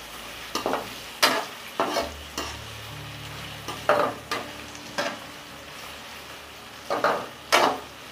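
Sliced onions sizzling in hot oil in a metal kadai, stirred with a perforated metal slotted spoon that scrapes and clatters against the pan in irregular strokes, roughly once or twice a second. The onions are in the first stage of frying, being taken to light brown.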